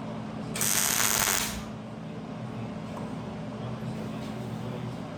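A short burst of hissing, crackling noise lasting about a second, starting about half a second in, over a steady low hum.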